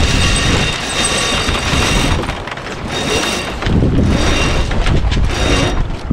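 Wind buffeting the microphone and water rushing along the hull of a small sailing yacht under way, a loud steady rush that dips briefly twice, with a few sharp cracks.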